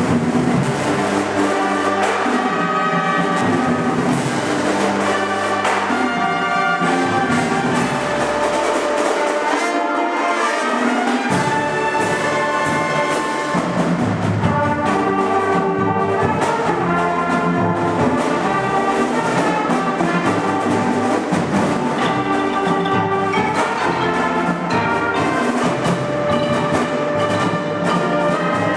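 Marching band playing loudly: a full brass section of trumpets and trombones carrying sustained chords and melody over a drum line.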